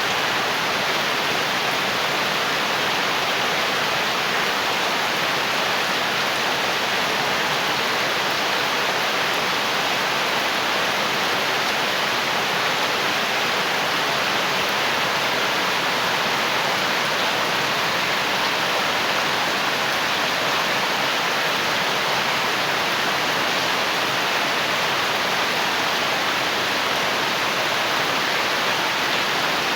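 Steady, heavy rain falling, an even unbroken hiss.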